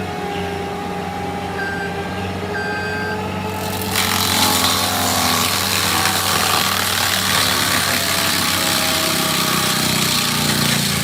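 Heavy machine's diesel engine running steadily, with a few short high warning beeps in the first few seconds. About four seconds in, a loud hissing noise joins it and holds.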